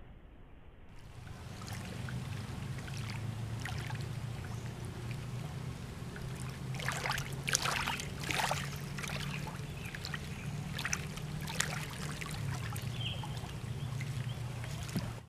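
Lake water lapping and gurgling right against a waterproof action camera held at the surface. A low steady rumble runs underneath, with a run of crackling splashes around the middle.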